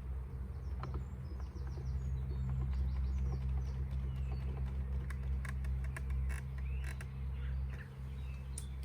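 Creaks and small clicks as small clamps are fitted onto the wooden pieces of a beehive, over a steady low rumble.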